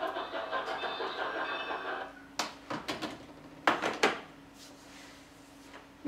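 Steam locomotive running, its exhaust chuffing in a quick rhythm, heard through a TV's speakers. It cuts off about two seconds in, then come a few sharp clicks and knocks over a faint steady hum.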